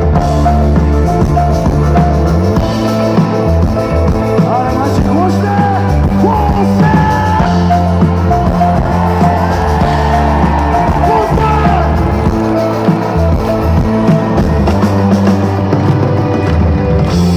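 A live rock band plays through the stage PA, heard loud from within the open-air crowd. Bass and drums hold steady under a melody line that slides in pitch through the middle.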